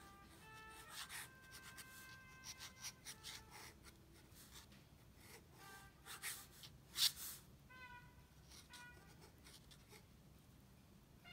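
Fountain pen nib scratching across sketchbook paper in short, uneven strokes, the sharpest about seven seconds in. Short snatches of faint tones come and go underneath.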